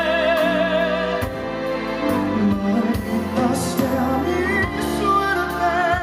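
Live band performing a Latin pop ballad: a male singer holds a long note with vibrato for about the first second, then keyboard, bass and drums with cymbals carry an instrumental passage, and the voice comes back in near the end.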